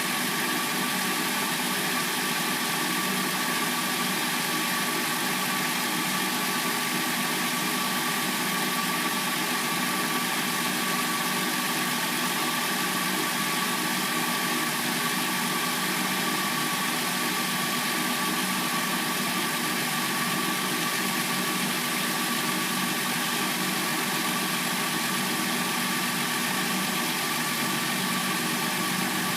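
Replacement engine of a 2006–09 Hyundai Sonata idling steadily as it warms up from a cold start.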